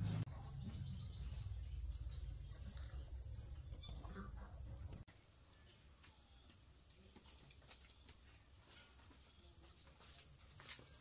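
Insects chirring steadily in two high, even tones. A low rumble underneath stops abruptly about halfway through.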